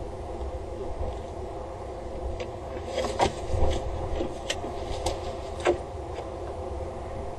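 A steady low hum with a cluster of sharp, irregular clicks and knocks a little over two seconds in and lasting about three seconds, as a falcon steps off and takes flight from its wooden nest box.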